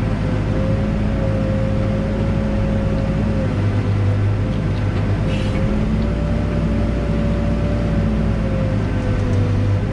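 Backhoe's diesel engine running steadily under working load, with a thin high whine above it that drifts slightly up and down in pitch.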